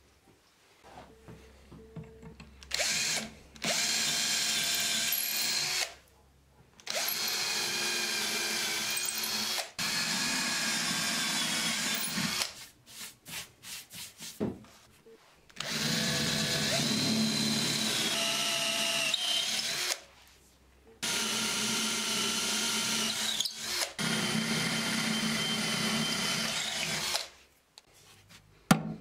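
Power drill running in several stop-start runs of a few seconds each, with light clicks and knocks in the pauses between them.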